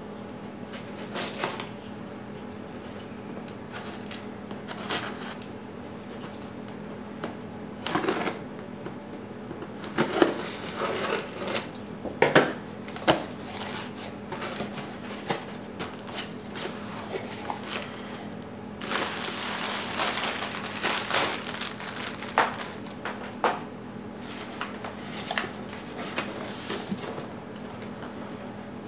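Cardboard box and packaging being opened and handled: scattered taps, clicks and rustles, with a longer stretch of rustling a little past halfway. A steady low hum sits underneath.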